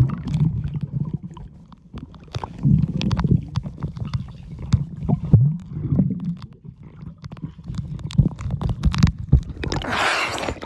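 Muffled underwater rumbling and gurgling from a camera held submerged in a swimming pool, with irregular surges of low sound and the high end dulled. About ten seconds in, a burst of splashing as the camera breaks the surface.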